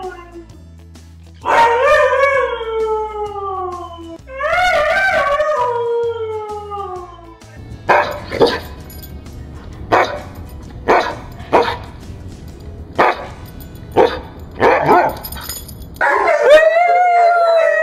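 Siberian Huskies vocalising: two long howls sliding down in pitch, then a run of about eight short, sharp barks roughly a second apart, then another long howl starting near the end. Background music plays low underneath.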